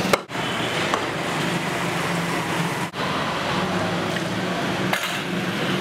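Steady street traffic noise with a low hum, broken by brief dropouts about every two to three seconds where the clips are cut together.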